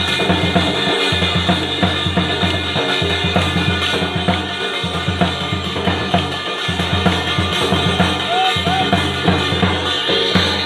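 Dhol drums beaten in a loud, driving rhythm for a Gair dance, the deep booms breaking off briefly about every two seconds in a repeating pattern.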